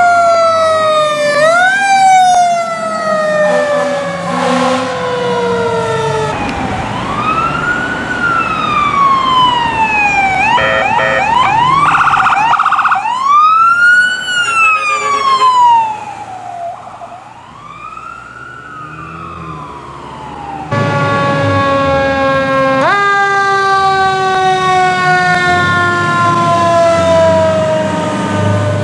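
Emergency vehicle sirens on responding fire apparatus, loud. At first a wail sweeps up and slides down every couple of seconds; then a slower wail rises and falls, with a brief stretch of rapid pulsing partway through. About 21 seconds in the sound changes abruptly to a siren whose pitch slides slowly downward.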